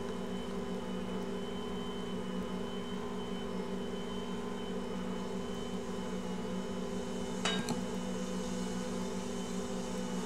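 Ankarsrum stand mixer running steadily with its dough hook kneading bread dough, a constant motor hum with a faint high whine. A brief knock about seven and a half seconds in.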